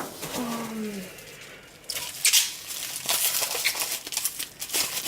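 Plastic packaging crinkling and rustling in the hands as supply bottles are unwrapped, a dense run of crackles and clicks from about two seconds in. Near the start there is a brief low hum that falls slightly in pitch.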